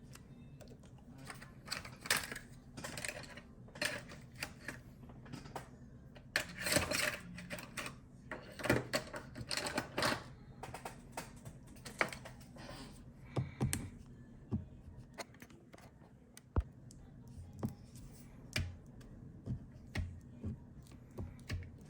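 Irregular clicks, taps and short scrapes of small hand tools working on an opened MacBook Pro laptop during a battery replacement, busiest in the first half and sparser later.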